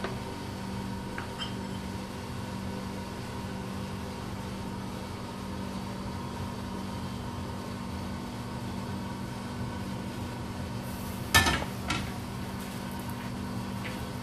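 Steady mechanical hum of a kitchen appliance. About eleven seconds in, a single sharp clank as the frying pan is put down.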